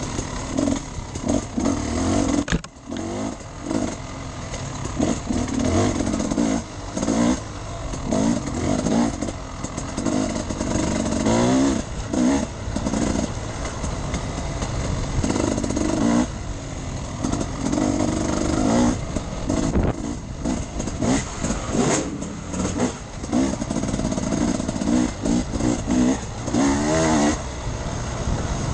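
Off-road enduro motorcycle engine revving up and down as it is ridden, its pitch rising and falling again and again, with frequent short knocks and a constant rushing noise over it.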